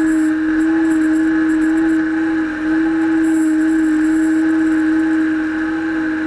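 Case IH tractor's diesel engine running steadily as the tractor drives, heard close to its upright exhaust stack: a strong, even drone.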